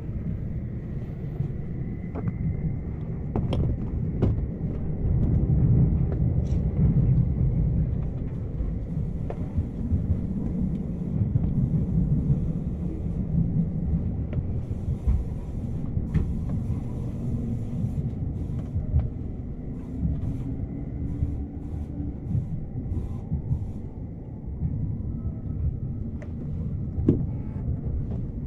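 Inside a Shonan-Shinjuku Line commuter train while it runs: steady low rumble of the wheels on the track, with scattered clicks and knocks and, about two-thirds of the way through, a faint tone rising in pitch.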